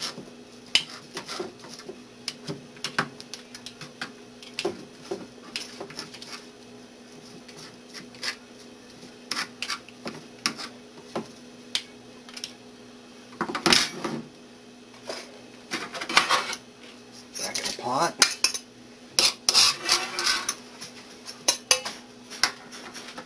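Metal tongs and a fork clicking and scraping on a plastic cutting board as cooked chicken breast is pulled apart, with denser, louder clatter around the middle and near the end as the shredded chicken goes into the stainless steel pressure-cooker pot.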